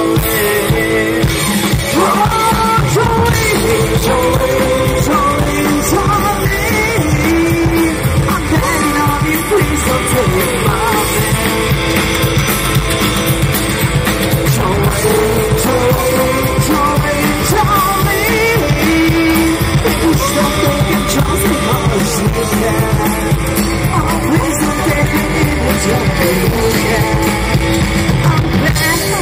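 Live amplified rock and roll band playing: upright double bass, drum kit and electric guitar, with a vocalist singing over them.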